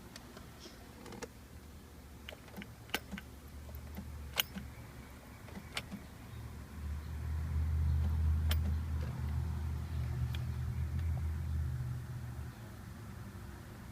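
2005 Chevrolet Colorado pickup's engine running with a steady low hum that grows louder about six or seven seconds in and drops back about twelve seconds in. Several sharp clicks come over it in the first half.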